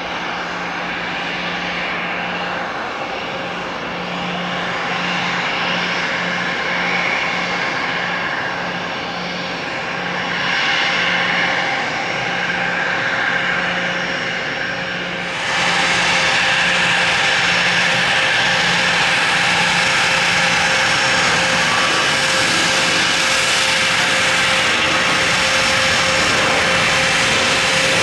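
Twin turbofan engines of a business jet running at taxi power, a steady jet whine and rush. It grows abruptly louder and brighter about halfway through.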